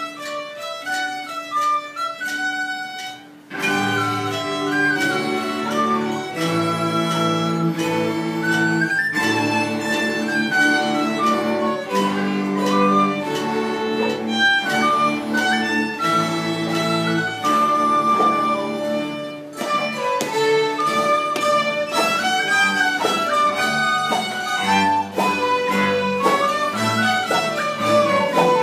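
A folk string orchestra of mountain dulcimers, fiddles and cello playing a tune together. A lighter melody opens the passage, and about three and a half seconds in the full group comes in with low bass notes underneath.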